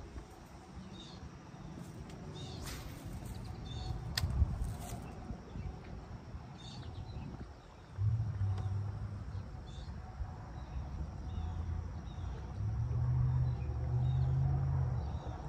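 A small bird chirping over and over, about once a second, over a low rumble that gets louder about halfway through. A couple of sharp clicks come in the first few seconds.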